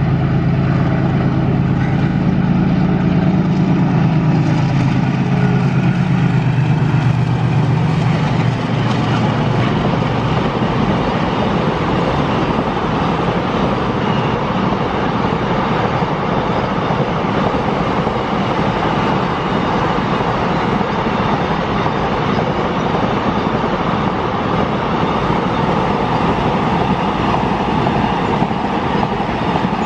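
A WDG4G diesel-electric locomotive's engine passing with a loud low drone that eases slightly down in pitch over the first several seconds. Then comes the steady rumble and clatter of double-stack container wagons rolling by on the rails.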